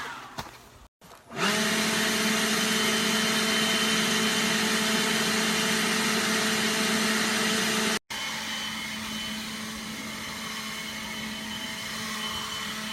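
Hoover ONEPWR cordless battery blower running steadily, a rush of air over a constant motor hum. It starts about a second in, drops out for an instant about eight seconds in, and carries on quieter after that.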